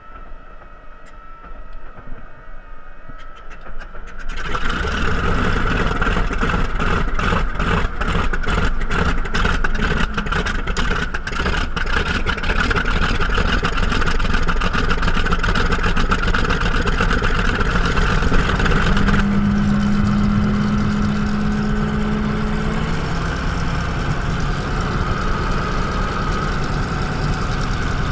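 Grumman F8F Bearcat's Pratt & Whitney R-2800 eighteen-cylinder radial engine being started, heard from the cockpit: a faint whine as it is cranked, then about four seconds in the engine catches with a sudden loud burst of uneven firing that smooths into a steady idle.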